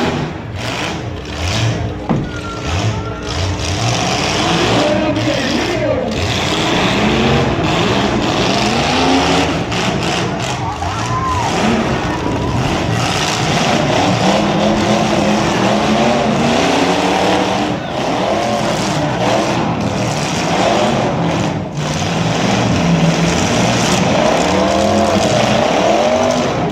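Several demolition derby car engines running at once, revving up and down over and over as the cars manoeuvre.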